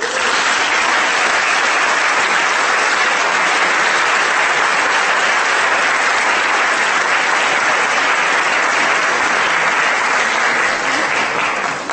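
Audience in a hall applauding steadily, starting abruptly and dying away near the end.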